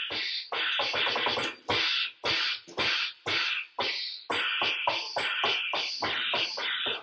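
Harsh, scratchy noise played as a sound effect, chopped into a stuttering rhythm by many short gaps, about two cuts a second.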